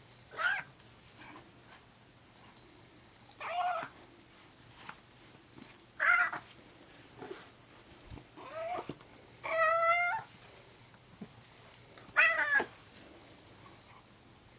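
Cat yowling in about six drawn-out calls a couple of seconds apart. One call, near two-thirds of the way in, is longer and wavering. These are the agitated calls of a cat stirred up by a stray prowling outside.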